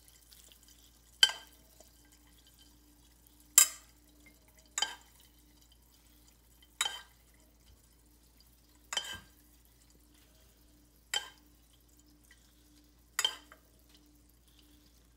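Kitchenware clinking as hot caramel is portioned into flan moulds: seven sharp clinks, each ringing briefly, one to two seconds apart, over a faint steady hum.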